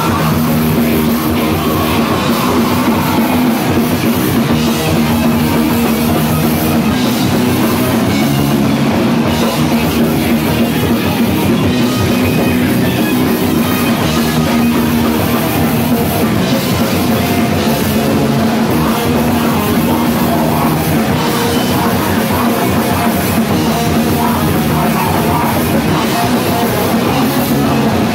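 A live heavy rock band playing loud: electric guitars and a drum kit.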